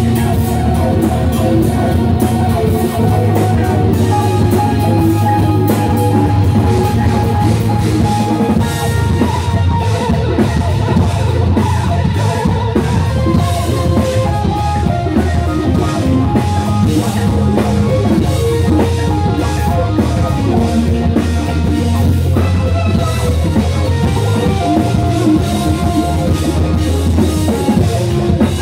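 A rock band playing live: electric guitar, bass guitar, keyboards and drum kit, with a heavy bass line and a steady drumbeat throughout.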